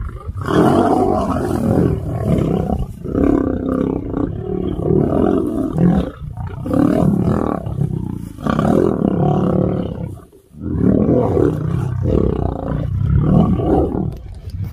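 Male lions fighting at close range, roaring and snarling loudly in long bouts broken by short pauses every two to three seconds.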